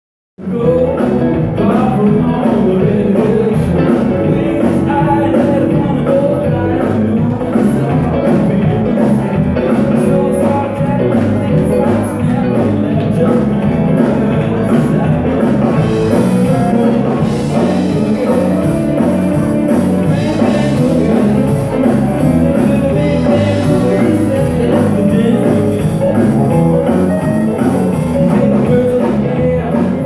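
Live band playing with drums, bass, electric guitars, pedal steel guitar and keyboards, with a steady beat, starting about half a second in.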